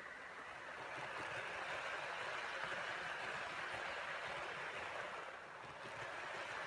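Hornby OO gauge HST model train running past: a steady whirr of its motor and its wheels rolling on the rails, dipping briefly about five seconds in.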